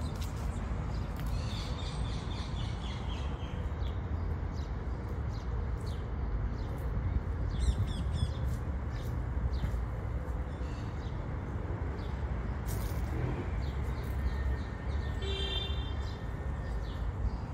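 Outdoor ambience: small birds chirping in short calls now and then, with a quick run of chirps near the end, over a steady low rumble.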